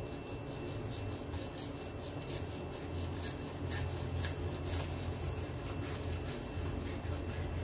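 Kitchen knife sawing and scraping between the skin and flesh of a red snapper fillet on a plastic cutting board, in quick repeated strokes, over a steady low hum.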